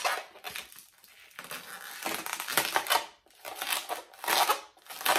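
Inflated latex modelling balloon squeaking and rubbing under the fingers as bubbles are twisted, in several bursts with short pauses between them.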